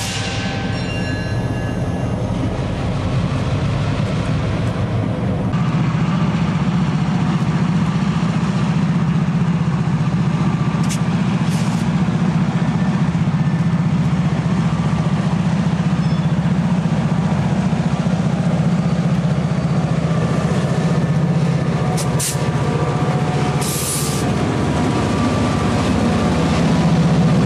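EMD SD38 diesel locomotive with a 16-cylinder 645 engine, running steadily and working under load as it pulls loaded lumber cars. It gets louder about five seconds in. A few short, sharp high-pitched noises come through near the middle and near the end.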